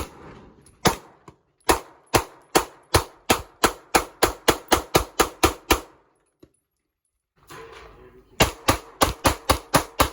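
Rapid semi-automatic 9mm pistol fire. A single shot comes first, then a fast string of about four shots a second. The sound cuts to silence for about a second, then another fast string follows near the end.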